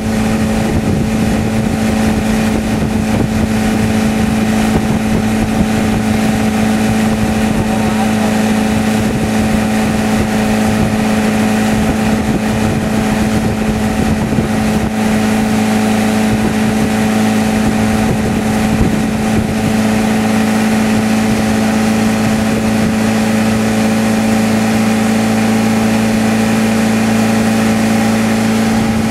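Motorboat engine running steadily at towing speed, a constant drone, with the rush of water from the boat's wake.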